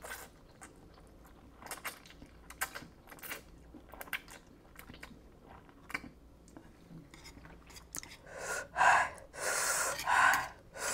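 Close-miked mouth sounds of a person eating spicy instant ramen noodles: slurping and wet chewing with many soft clicks. From about eight seconds in, louder breathy gasps and exhales as the spicy noodles burn.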